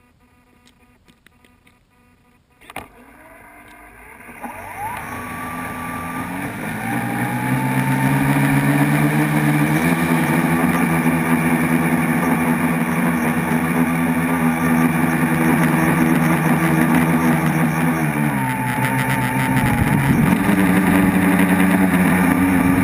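The motors and propellers of an RcExplorer-design tricopter, heard from its onboard GoPro. They start about three seconds in, rise in pitch over several seconds as the throttle comes up and the craft lifts off, then settle into a loud steady buzz. The pitch shifts with throttle changes near the end.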